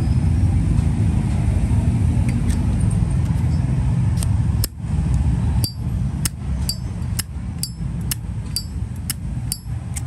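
Zippo lighter lid flicked open and snapped shut over and over: a run of sharp metallic clicks, about two a second, each with a brief bright ring, starting about four seconds in. A steady low rumble runs underneath.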